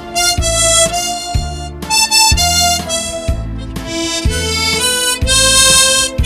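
Harmonica playing a slow melody of long held notes over a backing track with a steady low bass beat about once a second.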